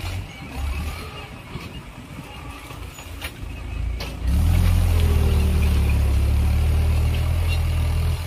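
Tractor engine running as the tractor pulls a tine cultivator through the soil. About four seconds in, a much louder, steady low rumble sets in.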